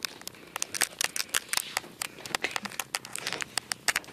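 Irregular clicking and crackling, several sharp clicks a second: handling noise from fingers and fabric rubbing against a handheld camera's microphone while it is carried down a staircase.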